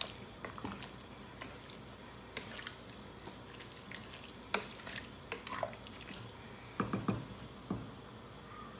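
A wooden spatula stirring mushrooms, bamboo shoots and gourd pieces in a pot of broth: irregular soft knocks and liquid sloshing, with a cluster of louder knocks about seven seconds in.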